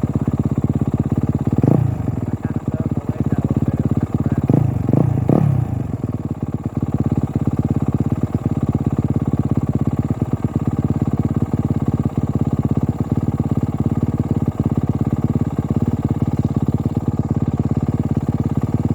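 Motocross bike engine idling steadily, with three brief throttle blips in the first six seconds.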